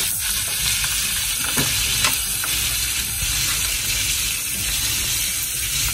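Beef steak frying in butter and oil in a nonstick pan: a steady sizzle, with a couple of faint pops about a second and a half to two seconds in.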